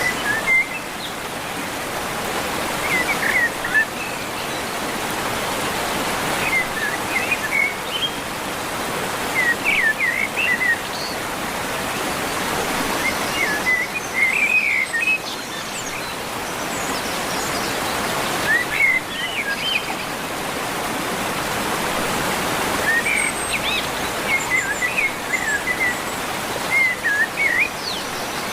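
Steady rushing water, like a stream or small waterfall, with a bird singing short chirping phrases every three to five seconds over it.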